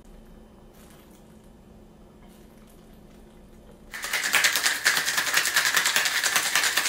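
Ice rattling hard in a cocktail shaker, a loud, rapid, even rattle starting about four seconds in, as a margarita is shaken.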